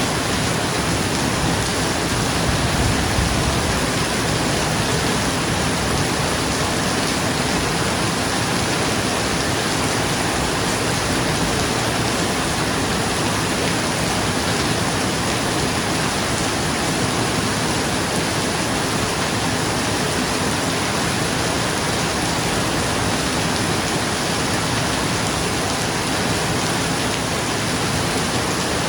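Steady rain falling on a roof, an even unbroken hiss, with a faint low rumble swelling briefly about three seconds in.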